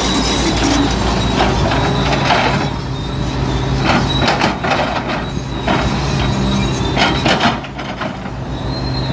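Hitachi Zaxis 240 tracked excavator's diesel engine running steadily, with a high steady whine at the start and near the end. Its bucket digs into and lifts loose soil, making about seven short scraping knocks and rattles of earth clods between about a second and a half in and the last two seconds.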